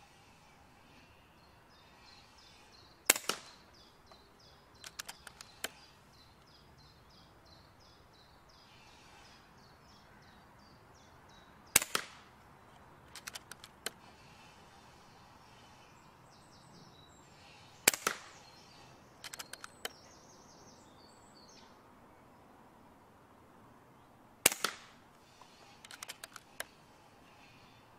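Four shots from a .22 FX Indy pre-charged pneumatic air rifle at full power, each a single sharp crack, spaced about six to seven seconds apart. About a second and a half after each shot comes a quick run of clicks as the side lever is cycled to chamber the next pellet.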